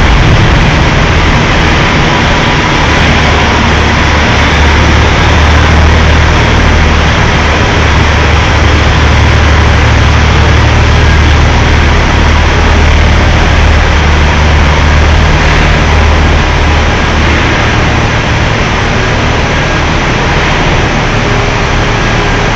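Diesel engine of a semi tractor pulling a heavy multi-axle lowboy trailer, a loud, steady low drone as the rig rolls slowly past.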